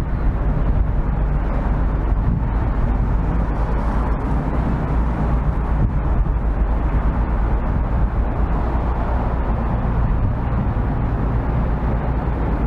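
Steady low rumble of city street ambience, with no distinct events standing out.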